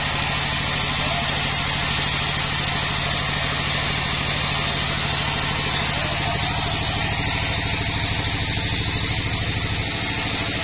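A band sawmill's drive engine running steadily with the blade spinning free between cuts, a fast even pulse with no change in load.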